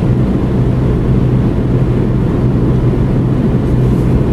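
Car cabin noise while driving at steady road speed: a steady low engine hum over tyre and road noise, picked up by a phone lying on the dashboard.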